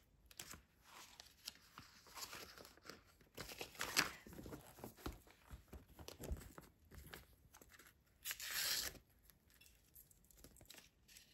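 Paper being handled: pages of a spiral-bound notebook turned and paper sticker sheets shuffled, in short rustles and clicks, with one longer, louder rustle about eight and a half seconds in.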